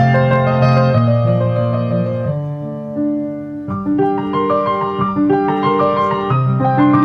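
Background piano music: a gentle melody of changing notes over held low notes.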